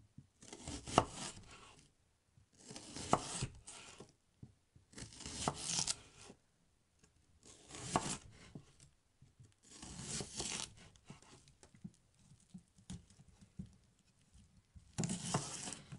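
Kitchen knife slicing through a log of homemade chicken salami on a wooden cutting board: about six cuts, roughly two seconds apart. Each cut is a short sawing scrape, some ending in a sharp tap of the blade on the board.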